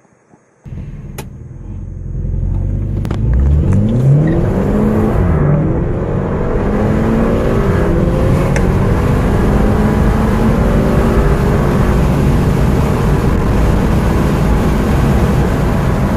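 Two small cars' engines heard from inside the cabins, mixed together, accelerating hard from a standstill. The revs climb, fall back at each upshift and climb again, with a few sharp clicks in the first seconds.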